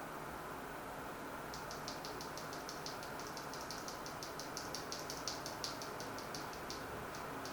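Gateron Ink mechanical keyboard switches being typed on: a quick run of key clacks, about five or six a second, starting about a second and a half in and stopping near the end, over a steady background hiss.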